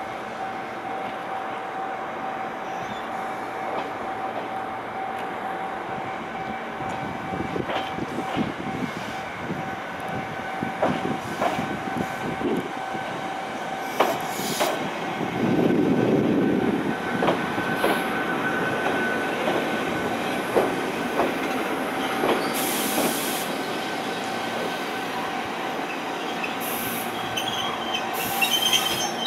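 Ichibata Electric Railway electric train, a former Keio car, pulling into a station: wheels clicking over rail joints as it slows, with a louder low rumble about halfway through as it comes to a stop. Near the end come short bursts of air hissing, over a steady high tone.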